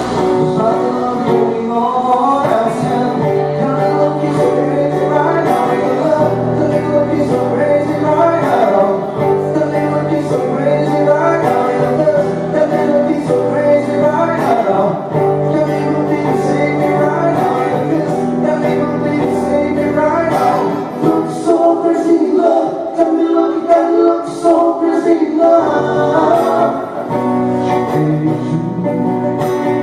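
Live voice-and-guitar music: a man singing a pop melody over guitar accompaniment with a sustained low bass line. The bass notes drop out for a few seconds past the middle, then return.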